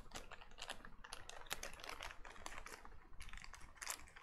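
Hands taking a new MOSFET out of its packaging: a quick, irregular run of light clicks and rattles from handling small plastic-packed parts.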